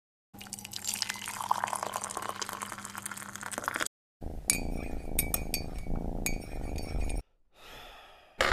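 Liquid poured into a china teacup, its pitch rising as the cup fills, then a metal teaspoon stirring and clinking against the cup's sides.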